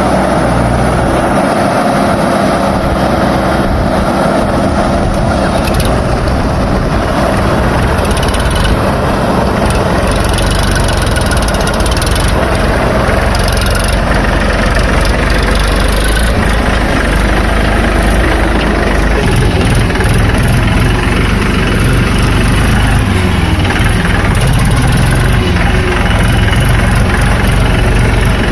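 Diesel engines of a JCB 3DX backhoe loader and farm tractors running steadily under work. The low rumble grows deeper and heavier about two-thirds of the way through.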